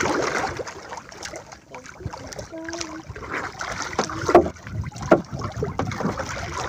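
Water splashing and sloshing as a swimmer moves and surfaces at the side of a small boat, with a few sharp knocks about four and five seconds in.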